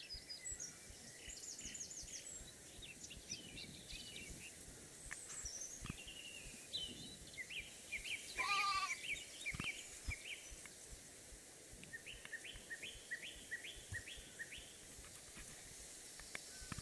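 Woodland ambience with birds calling in many short repeated chirps, and one louder, wavering animal call about halfway through.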